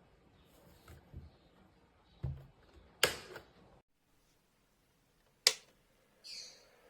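A few separate knocks and clicks: a dull knock, then two sharp clicks with a gap between them, and a brief rustle near the end.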